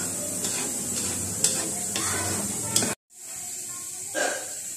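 Coconut milk sizzling and bubbling in a wok as it is stirred with a spatula, caramelizing into the thick sweet base for kalamay, with two sharp spatula knocks against the pan. The sound cuts out abruptly about three seconds in, then a quieter, steady sizzle resumes.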